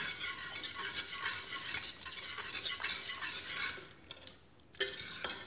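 Wire whisk stirring and mashing boiled chicken in broth in an aluminium pressure cooker pot, its wires scraping and clinking against the metal. The stirring stops about four seconds in, and a single knock follows shortly after.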